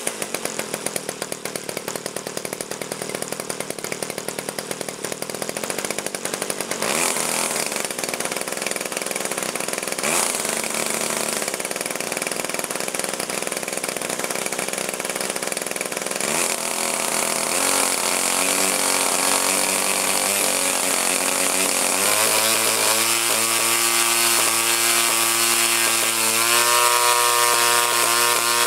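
DLA 56cc single-cylinder two-stroke petrol engine of an RC model plane running on its first start. It idles with a rapid popping, is revved up briefly a couple of times, then is taken up in steps to a higher, steady pitch over the second half.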